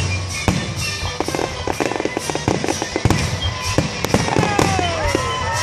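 Fireworks going off in quick succession: many sharp bangs and crackles, with a falling whistle-like tone near the end.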